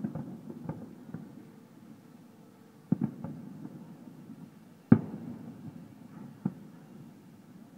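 Distant aerial firework shells bursting: a string of sharp bangs at uneven intervals, the loudest at the start and about five seconds in, each trailing off in an echo.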